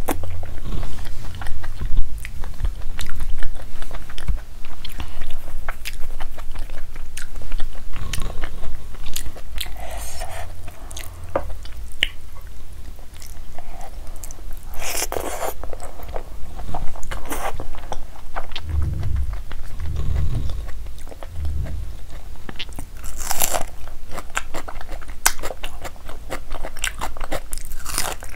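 Close-miked eating by hand: wet chewing and lip smacking of rice and palak paneer, with sharp mouth clicks all through and a few louder crunchy bites, including a bite of raw red onion near the end.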